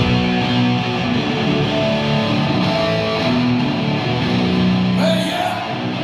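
Heavy metal band playing live on stage: loud distorted electric guitar over drums, with a singer's vocal.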